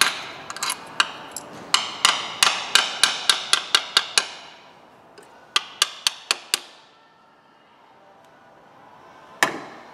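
Hand tool striking metal engine parts during repair work. First comes a quick run of about a dozen sharp metallic taps, roughly three a second, each with a short ring, ending about four seconds in. A burst of five more follows a little later, and a single tap comes near the end.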